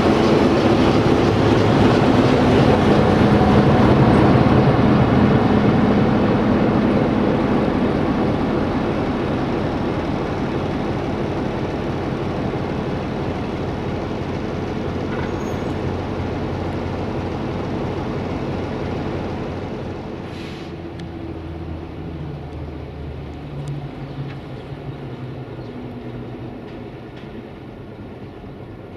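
Electroputere LDE2100 diesel-electric locomotive's Sulzer 12LDA28 diesel engine, loud as the locomotive moves close by and then running at idle. About twenty seconds in there is a brief hiss and the engine is shut down, its sound running down and fading away.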